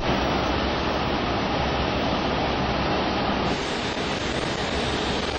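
Steady, even rushing noise in an Airbus A380 cockpit while the jet taxis, cutting in suddenly at the start.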